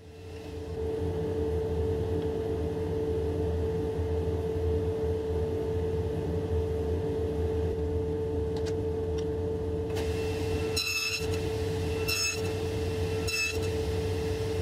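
SawStop table saw running with its blade spinning free, a steady hum that comes up within the first second. Near the end come four short sharp clicks about a second apart.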